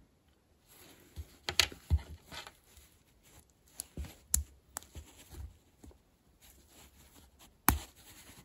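Hands handling a small wheel weight made of brass rings soldered together with tin, fitting it to a micro crawler's rubber tyre: light scattered clicks and rubbing of metal on rubber. A sharper click comes near the end.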